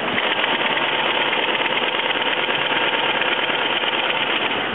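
Industrial Sailmaker sewing machine stitching through heavy sailcloth, running at speed with a fast, even stitch rhythm. It starts at once and stops just before the end.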